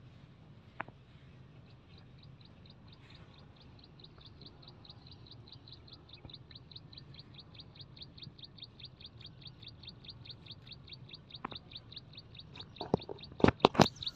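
A bird calling in a rapid run of short, high chirps, about five a second, growing steadily louder, over a low steady hum. Several sharp knocks come near the end.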